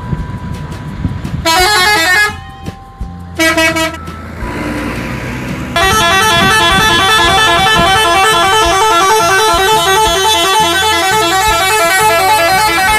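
Multi-tone musical bus horns (Indonesian "telolet" horns) playing quick melodic note patterns. There are short blasts in the first few seconds, then a loud unbroken run of tunes from about six seconds in.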